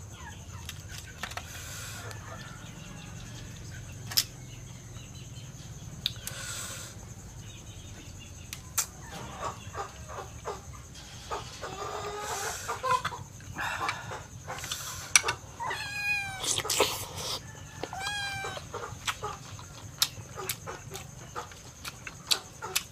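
Balut eggshell being peeled and cracked by hand, with a metal spoon clicking against a metal tray and sauce bowl, and eating sounds. About two-thirds of the way in, a pet animal gives three short, high cries with bending pitch.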